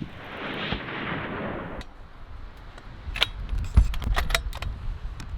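The hunting rifle's shot echoing and rolling away, dying out after about two seconds. Then a quick series of sharp metallic clicks and clacks as the rifle's bolt is worked to chamber another round.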